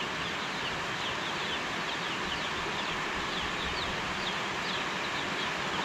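Steady rain falling, with many short, high chirps from small birds, each dropping in pitch.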